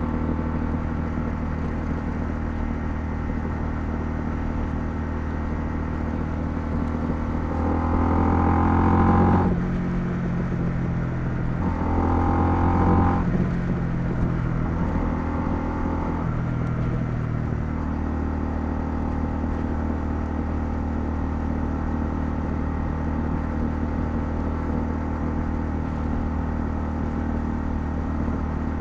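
Honda CL250's single-cylinder engine running at a steady cruise. About eight seconds in it revs up with rising pitch and shifts through gears for several seconds, then settles back to an even note.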